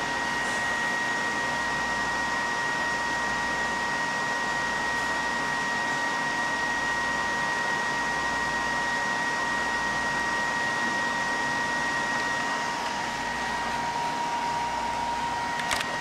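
Mini-ITX PC's CPU cooler fan spinning fast at over 6,000 RPM, a steady rushing noise with a high whine in it; the whine comes from the fan having no space between it and the power supply. The higher of two whine tones fades out about three-quarters of the way through.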